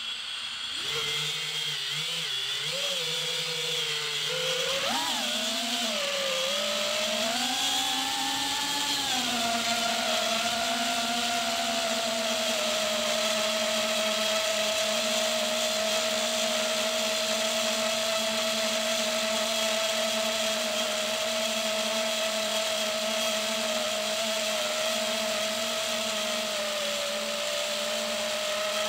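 FPV quadcopter's brushless motors and propellers, heard close up from its onboard camera. They idle on the ground at a low steady pitch from about a second in, rise and wobble in pitch around four to ten seconds in as the drone throttles up and takes off, then hold a steady whine in flight.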